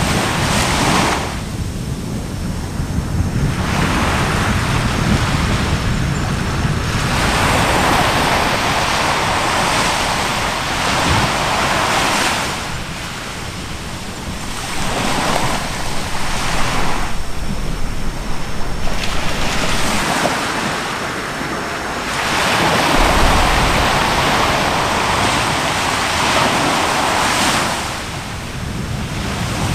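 Surf washing onto a shore in slow surges, each swell rising and falling away over a few seconds, with wind buffeting the microphone.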